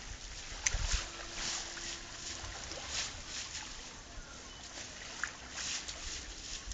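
Faint outdoor rustling and light crackles, with a few low thumps of handling noise from a handheld camera being moved about a second in.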